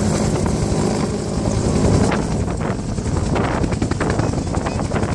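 Helicopter rotor and engine running steadily overhead as it flies off with a loaded water bucket slung beneath, mixed with wind buffeting the microphone.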